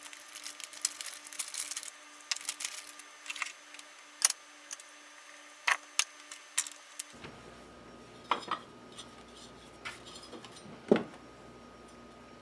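Crinkling of an anti-static plastic bag and small clicks of parts being handled on a workbench mat, followed in the second half by a few separate sharp knocks as a stepper driver and other items are set down.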